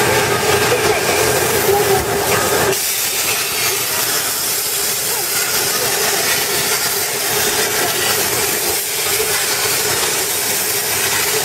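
CNC plasma cutting torch cutting metal plate, a loud steady hiss of the plasma arc and gas jet with a constant tone underneath. The deeper rumble drops away about three seconds in.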